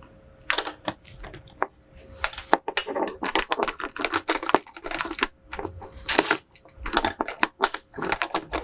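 Cordless drill with a Phillips bit tightening small bracket bolts, heard as a run of irregular metallic clicks and clatters.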